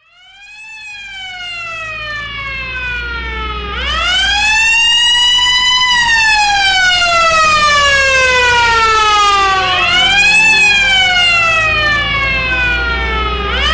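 Emergency vehicle siren wailing in slow rising and falling sweeps, fading in from silence over the first couple of seconds, with a low steady rumble beneath.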